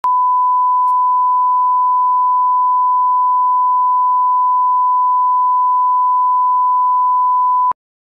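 Steady electronic test tone, one pure unchanging pitch: the line-up reference tone laid at the head of a video tape for setting audio levels. It cuts off abruptly just before the end.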